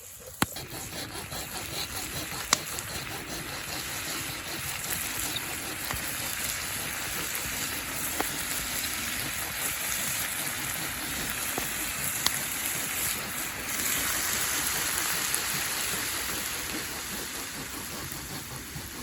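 Beef and onions stir-frying in a pan: a steady sizzling hiss that grows slightly louder, with a few sharp pops.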